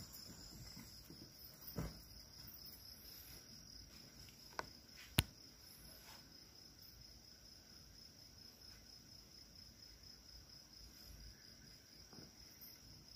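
Faint, steady high-pitched chirring of crickets on a summer night. A few faint clicks break in; the sharpest comes about five seconds in.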